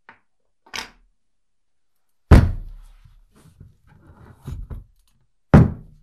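Heavy objects set down on a wooden workbench: a perforated steel flask and its rubber base. There are two loud thuds about three seconds apart, with a lighter knock before them and a few smaller knocks and scrapes between.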